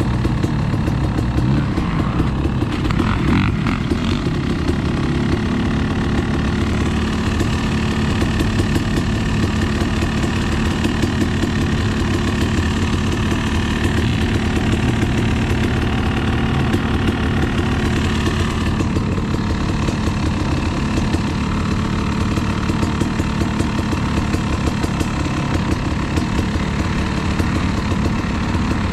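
Dirt bike engine running steadily, mostly at idle.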